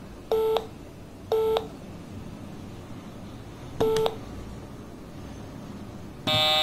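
Short electronic beeps, like telephone keypad tones: three brief beeps at uneven spacing, then a longer one starting near the end.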